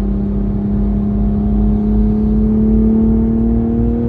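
Toyota Supra's engine pulling steadily in a high gear, heard from inside the cabin: one loud, even drone that climbs slowly in pitch as the car keeps gaining speed.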